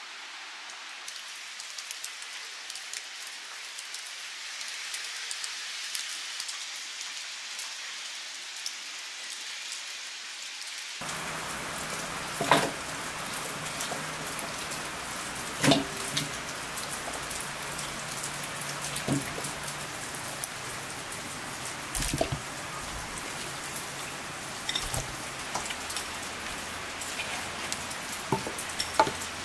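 Steady patter of rain. About eleven seconds in it grows fuller, and a handful of sharp knocks and clinks follow a few seconds apart, from raw chicken pieces and utensils handled in large aluminium bowls and a perforated aluminium pan.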